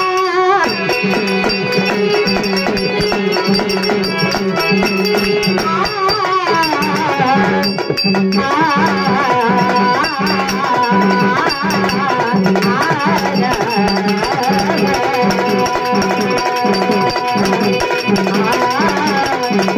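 Live devotional bhajan music: a woman singing through a microphone over harmonium and a hand drum keeping a steady, even beat.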